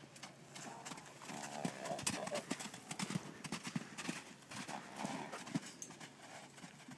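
Two Dutch Warmblood weanling foals galloping loose on soft sand-and-dirt arena footing: quick, irregular hoofbeats of two horses at once.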